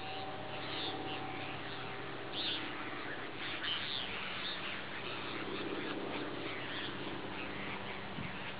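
Several birds chirping and calling in short bursts over a steady background hiss, with a faint steady hum underneath.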